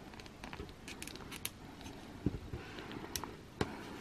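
Light plastic clicks and taps as a small plastic figure's head is pressed onto its neck peg and the figure is handled. Two soft knocks come about two and three and a half seconds in.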